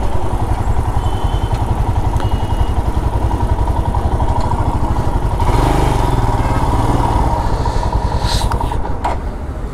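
Motorcycle engine running at low speed as the bike rolls slowly and pulls up, a steady rapid beat with a brief rise in revs about halfway through.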